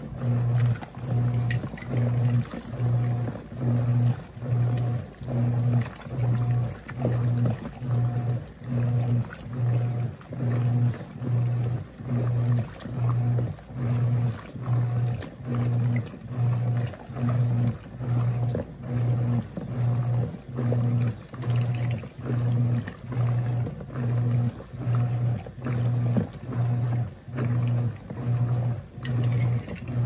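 Wanke Sally 5 kg semi-automatic washing machine on its heavy wash cycle: the motor hums in short, even pulses, a little more than one a second, as the agitator swings back and forth. Water sloshes and splashes in the tub between the pulses.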